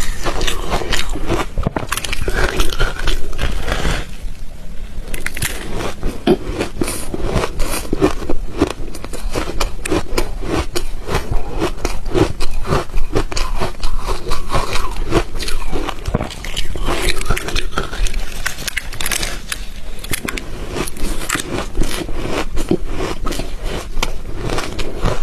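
Ice being bitten and chewed close to the microphone: a dense run of sharp crunches and cracks, with a brief lull about four seconds in.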